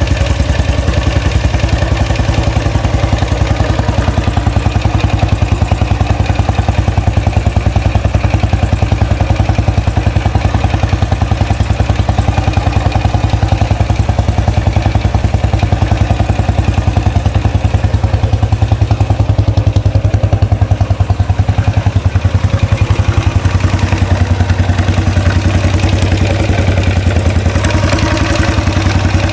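2013 Royal Enfield Classic 500's single-cylinder engine idling steadily on its first run after an engine rebuild, with a slight ticking that the owner is unsure about.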